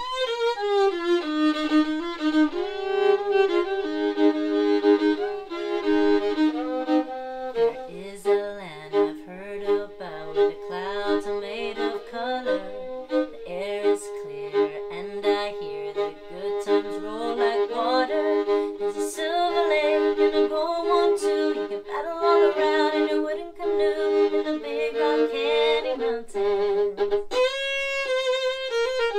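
Solo fiddle playing a tune, bowed, with held notes and two strings sounded together in places.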